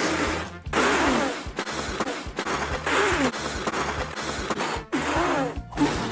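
Chopped-up animated-film soundtrack: music and noise broken by several abrupt cuts, with a few short falling squeals.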